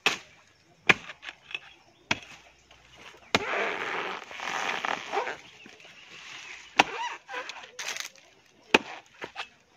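A long-handled metal blade chopping into the fibrous crown of a felled coconut palm to get at the palm heart. About six sharp strikes come a second or more apart, with a longer gap in the middle.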